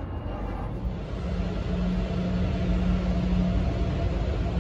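Steady low engine rumble. About a second in it gets a little louder and a steady low hum joins it.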